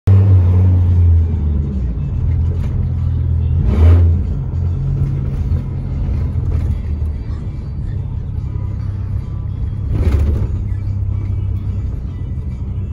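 Pickup truck being driven, heard from inside the cab: a steady low engine and road drone, with two brief swells of noise about four seconds in and about ten seconds in.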